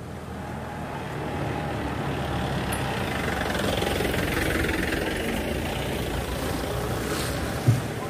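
Small pickup truck's engine and tyres coming along the road, growing louder over the first few seconds and staying loud, with one sharp thump near the end.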